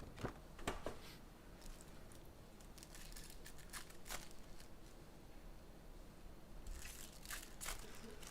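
Trading card pack wrappers being torn open and crinkled, faintly, with a few sharp taps in the first second.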